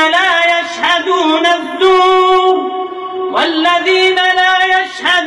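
Melodic Qur'an recitation (tilawah): a single voice drawing out long, ornamented notes in a melismatic run, with a few short breaks between phrases.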